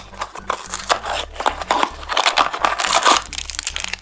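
Hands opening a small cardboard Minecraft blind box and pulling out the foil-wrapped figure inside: rustling and crinkling of card and foil, with many small clicks.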